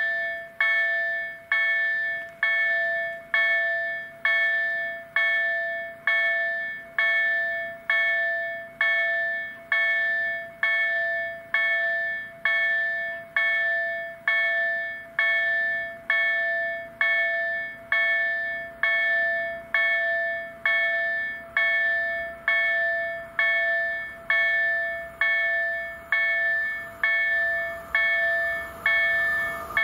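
Level crossing warning bell ringing in a steady repeating pattern, about one and a half strikes a second, each strike ringing out and fading. It sounds the warning for an approaching train, which starts to be heard rising underneath right at the end.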